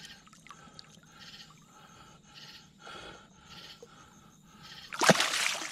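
Heavy rhythmic breathing from an angler straining against a big blue catfish, a soft puff about every half second. About five seconds in comes a loud, sharp burst of noise.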